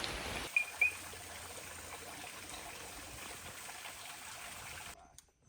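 Steady trickling of running water, like a small rainforest stream, with two short high chirps about a second in; it cuts off abruptly near the end.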